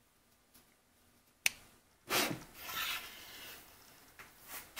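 Small hardwood burr-puzzle pieces being handled: a sharp wooden click about a second and a half in, then a second or so of wood rubbing and sliding against wood, and a few light taps near the end.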